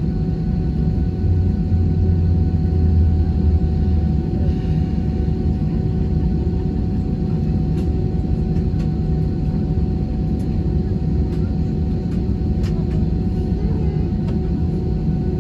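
Airbus A320 cabin noise on the ground: a steady low rumble with a steady whine from the running engines and air conditioning, heard inside the cabin. The rumble swells for a few seconds near the start, and a few faint clicks come through.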